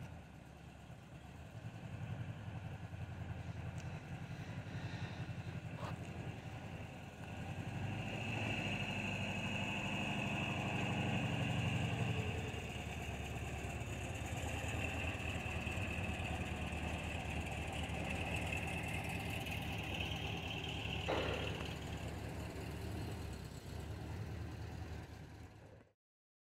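Air-cooled flat-four engine of a Volkswagen T2 bus running at low speed, a steady low rumble, with a thin high steady tone over the middle stretch and a single knock about 21 seconds in. The sound cuts off suddenly near the end.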